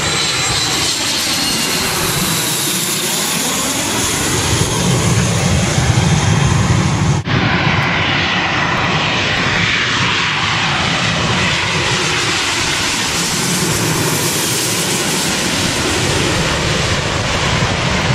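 Jet airliners passing low overhead on approach to land, a loud, steady jet engine roar with slowly sweeping tones as each one goes by. First comes a business jet, then, after a cut about seven seconds in, a twin-engine widebody airliner.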